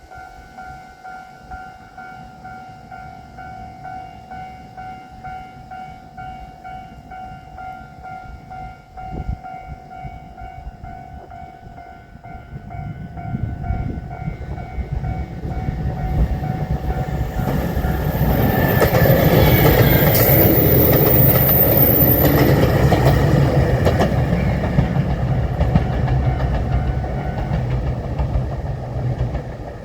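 Japanese level-crossing bell ringing its steady, repeating 'kan-kan' ding. From about halfway, a JR Shikoku 2700 series limited express diesel train approaches and passes through the crossing. Its engines and wheels build to a loud rumble, with wheels clacking over the rail joints, then ease slightly near the end.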